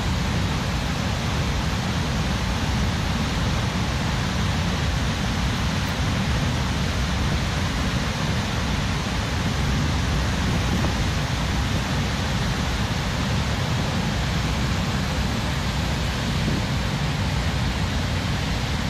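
Gaganachukki Falls in flood: the steady, unbroken rush of a large waterfall heard from the viewpoint.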